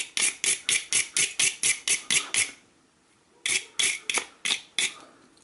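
A spark plug being filed clean by hand with quick back-and-forth scraping strokes, about five a second. The filing stops for under a second near the middle, then a shorter run of strokes follows.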